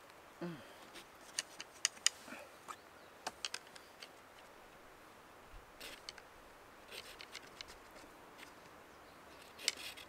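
Knife blade whittling a thin wooden stick: scattered short scrapes and clicks as the blade shaves the wood, coming in small clusters with pauses between.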